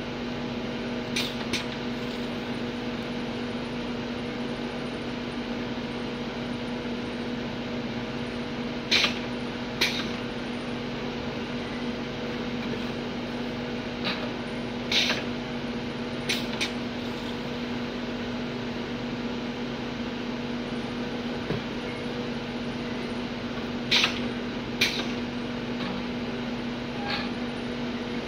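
Steady hum of a bottle-filling machine running, with several sharp knocks and clatters as plastic bottles are set down on and lifted off its steel tray.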